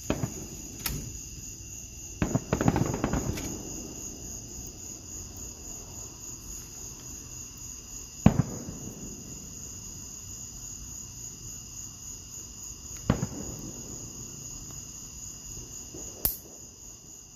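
Fireworks going off: a sharp bang, then a cluster of crackling reports about two seconds in, single booms near the middle and later that trail off, and a sharp crack near the end. Crickets chirp steadily throughout.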